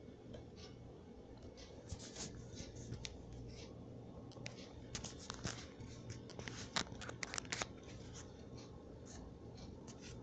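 Faint handling noises from gloved hands working with tools and cardboard packaging: a scatter of short clicks and scrapes, thickest in the middle, over a low steady hum.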